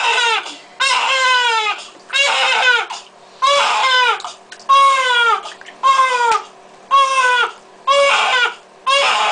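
A young baby crying in a bath: a steady run of short wails, about one a second, each falling in pitch.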